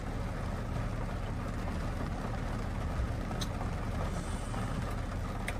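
Steady low rumble and hiss heard inside a parked SUV's cabin in heavy rain, with two faint ticks, one midway and one near the end.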